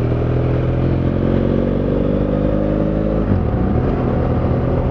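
BMW F800GS parallel-twin motorcycle engine running under way, its note rising slowly as the bike pulls, then dropping away abruptly about three seconds in, over steady wind rush.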